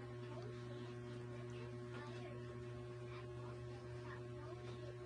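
Steady low electrical mains hum with a few thin steady tones above it.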